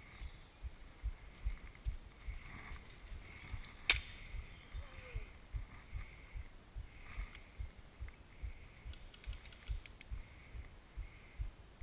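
Steady low thumps about twice a second, like walking footsteps jolting a body-worn GoPro, with one sharp crack about four seconds in.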